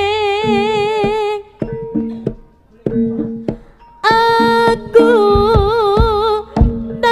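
Live jaranan music: a high, wavering melody line over drum strokes. The melody breaks off about a second and a half in, leaving only a few drum strokes, then comes back strongly about four seconds in.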